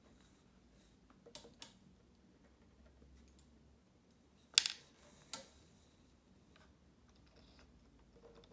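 Metal laparoscopic instruments clicking while a suture knot is tied: a few sharp clicks, two close together about a second in, the loudest about halfway through and another under a second after it.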